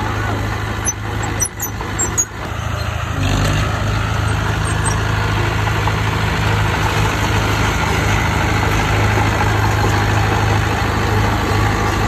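Diesel engine of heavy earthmoving machinery running, uneven with a few short breaks in the first couple of seconds, then steadier and louder from about three seconds in.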